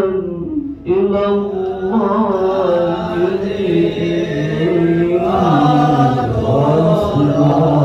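A man chanting a slow, ornamented Arabic recitation into a handheld microphone, holding long notes that slide and bend in pitch. He takes a short breath about a second in.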